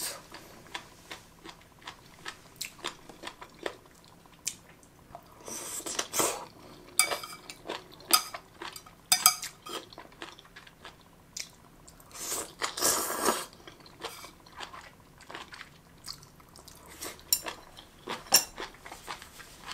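Close-up chewing of sesame-marinated jellyfish strips, a run of crisp, crunchy bites with a few louder bursts.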